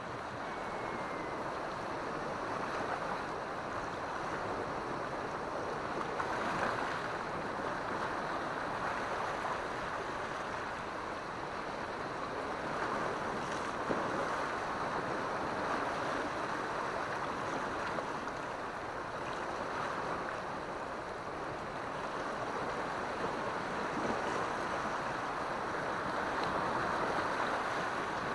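Sea waves washing against a rocky shore: a steady rushing that swells gently now and then.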